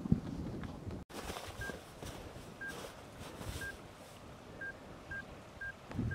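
Short electronic beeps at one steady pitch, one a second and then quickening to two a second. This is typical of a camera's self-timer counting down to the shot.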